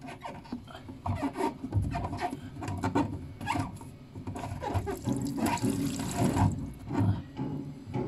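Water draining through a bathtub's pop-up waste, gurgling and splashing in irregular bursts, with a fuller rush about five seconds in.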